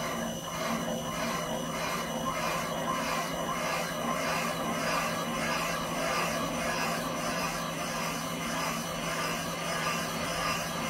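Valve seat cutter spinning in a valve seat of a John Deere 6068 cast iron cylinder head, cutting a three-angle seat: a steady motor whine with a rhythmic scraping pulse about twice a second as the cutting bit goes round.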